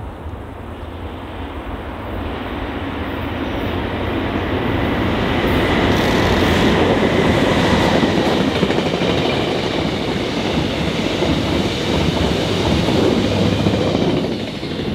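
A train passing close by: the rumble of its wheels on the rails builds over the first few seconds, stays loud through the middle, and eases near the end, with a faint high-pitched whine around the middle.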